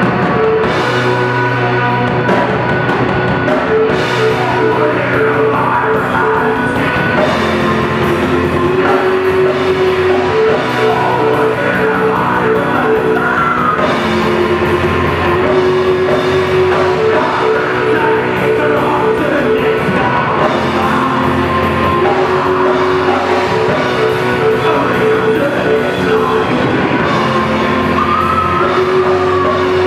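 Live rock band playing loudly: electric guitars, bass guitar, drum kit and keyboard over a repeating riff, with a man singing.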